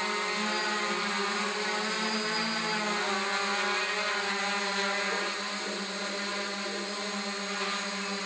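DJI F550 hexacopter's electric motors and 8x4.5 propellers buzzing steadily in a hover, with a thin high whine above the buzz. The pitch dips slightly about three seconds in.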